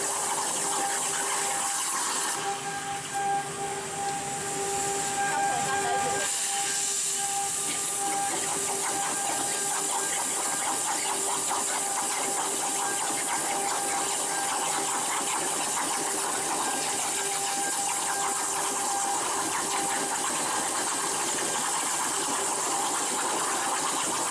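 CNC plasma cutting torch running, a loud steady hiss with a constant tone under it. The hiss thins out for a few seconds near the start, then carries on evenly.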